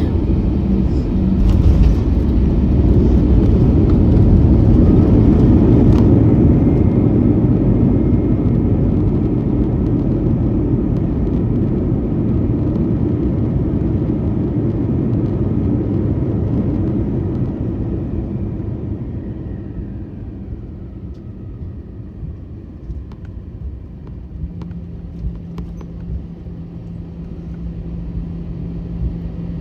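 Airbus A321 cabin during landing rollout: a loud engine and runway rumble swells over the first few seconds, then dies away as the jet slows. It leaves a quieter cabin hum with a steady low drone near the end and a few light ticks.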